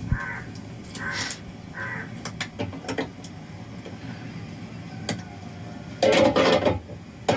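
Crows cawing outdoors, three short caws about a second apart near the start. Scattered light clicks follow, and a louder, rougher clatter comes near the end.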